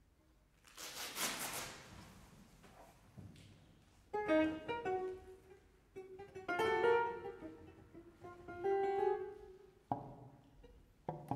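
Contemporary chamber music played by a small ensemble of piano, clarinet, percussion and strings. A brief hissing noise comes about a second in, then scattered short plucked-sounding notes and a few held tones follow.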